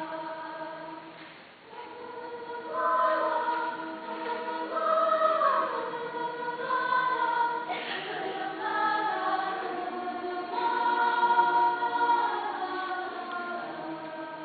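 Choir singing held chords with moving melody lines; it dips softly just over a second in, then swells louder and stays full.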